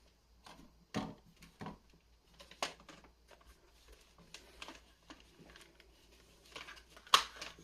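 Scattered plastic clicks and knocks from handling an NP-F970-type camera battery and an LED video light, with the loudest knock near the end.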